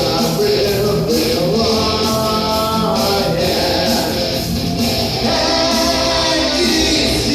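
Rock band playing live: electric guitar and drums with cymbals, with long held melody notes over them.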